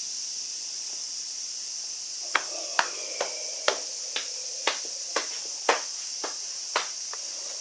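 About ten sharp taps or knocks on the glass window, irregular at roughly two a second, from about two seconds in until near the end. Under them runs a steady high-pitched insect drone.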